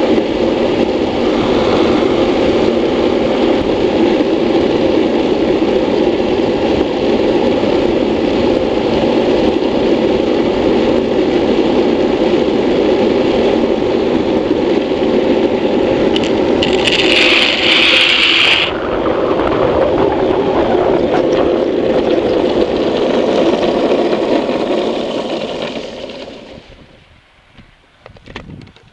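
Buttboard's wheels rolling fast on asphalt, with wind over a helmet-mounted microphone, a steady rush. About seventeen seconds in there is a high-pitched scrape lasting about two seconds. Near the end the rush dies away as the board slows to a stop.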